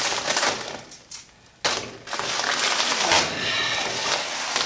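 Sheet of car vinyl wrap film being handled and pulled into place, rustling and crinkling with small clicks. It goes quiet briefly about a second in, then starts again with a sudden crackle.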